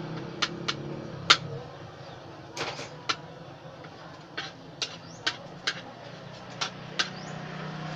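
A metal utensil clacking and scraping against a steel wok as vegetables are stirred. There are about a dozen sharp, irregular knocks.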